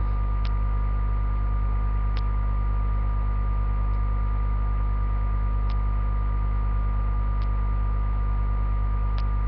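Steady electrical mains hum running under the recording, with a faint sharp tick just under every two seconds.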